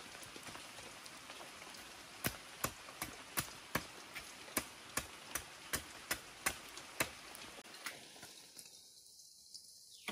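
A machete chopping bamboo: about a dozen sharp, evenly spaced strikes, roughly two or three a second, which stop about seven seconds in. A steady hiss runs underneath.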